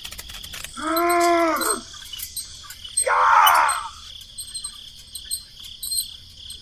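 Steady insect chirring like crickets, a constant high whine with fine ticking. Two louder voice-like calls stand out over it: a pitched call that rises and falls about a second in, and a rougher call about three seconds in.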